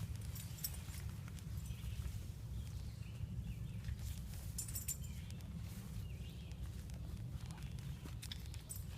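Footsteps through undergrowth on a woodland trail, with scattered small snaps and crackles of twigs and leaves, over a steady low rumble.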